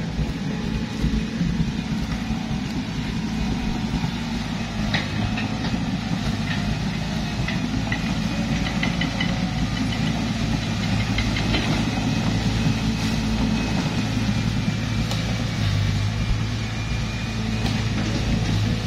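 Diesel engines of a crawler excavator and a stuck, loaded hardtop 4x4 running together as a steady low drone, with scattered light metallic clicks.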